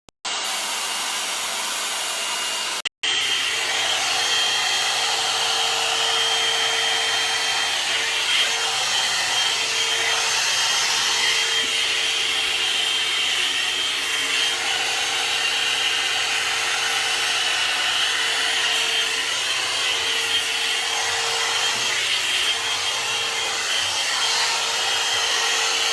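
Hair dryer running: a steady rush of blown air with a constant motor hum, cut off briefly about three seconds in.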